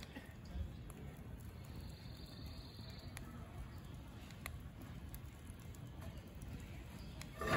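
Wood fire burning under a grill grate, with a steady low hiss and a few scattered soft pops and clicks. Right at the end comes a short, louder pitched sound.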